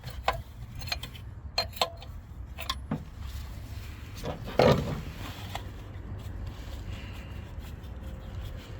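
Hand tools and parts clicking and knocking during repair work, a handful of sharp clicks followed by one louder knock about halfway through, over a steady low hum.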